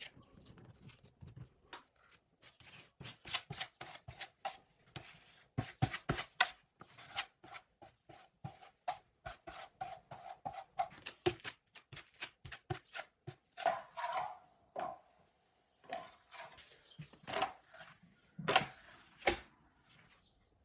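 Hand tool scraping across a drywall patch in many short, quick strokes, a few a second, with a brief pause about three quarters of the way in and a few harder strokes near the end.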